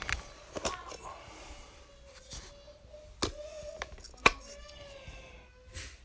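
Hard plastic clicks and knocks as the round black plastic base of a Thermacell mosquito repeller is handled and opened, about six sharp clicks with the loudest about four seconds in, over a faint steady hum.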